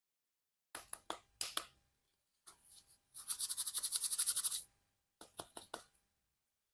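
Plastic toy being handled: scattered clicks, then a rapid rattling run of about a dozen clicks a second for about a second and a half, and a few more clicks near the end.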